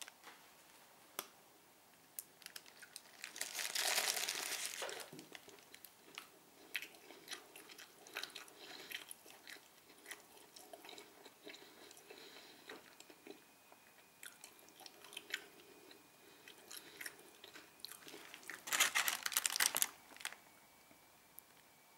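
Close-up chewing and crunching of a kebab burger with lettuce in a sesame bun, many small wet clicks, with two louder noisy bursts of a second or so, about four seconds in and near the end.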